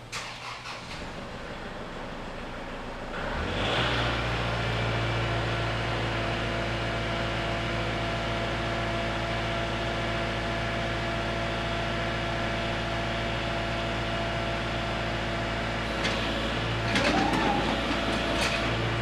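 Compact diesel tractor engine running, its speed picking up about three seconds in and then holding steady. Near the end come a few knocks and a short whine that changes pitch, as the snowblower chute is swung round by its rebuilt hydraulic cylinder.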